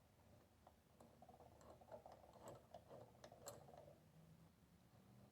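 Near silence with a few faint clicks and a soft rustling scrape: a metal C-clamp being handled and fitted onto a glued wooden piece.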